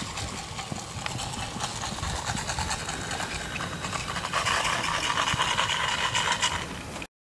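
Hoofbeats of a horse trotting and cantering loose on a sand paddock: irregular soft thuds over a steady outdoor noise. The sound cuts out abruptly for a moment near the end.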